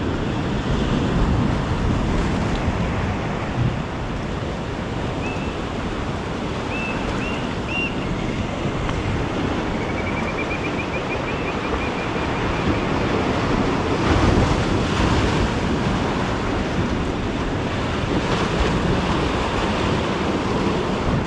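Ocean surf washing and breaking against rocks, with wind buffeting the microphone.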